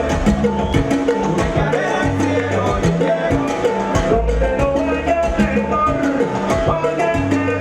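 Salsa music from a band: percussion keeping a steady, dense beat under bass and other pitched instruments.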